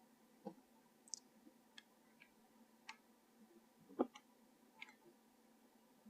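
Near silence broken by about six faint, short clicks and taps, the loudest about four seconds in.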